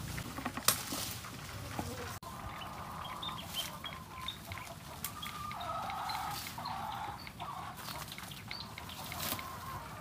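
Chickens clucking and calling, with small birds chirping higher up. A few sharp knocks come in the first two seconds, the loudest about a second in.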